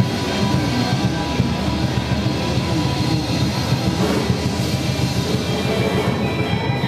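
A live rock band playing a blues, with electric guitars and drums going steadily.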